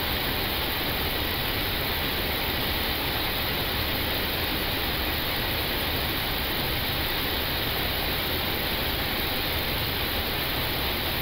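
Steady flight-deck noise of an Airbus A320 on approach: an even, unchanging rush of airflow and cabin air.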